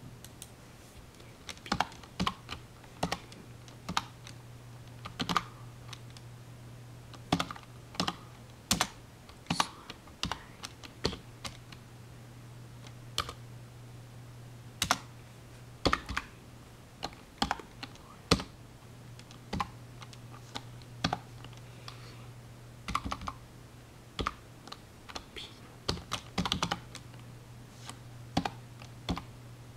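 Typing on a computer keyboard: irregular keystrokes in short runs with pauses between them, over a steady low hum.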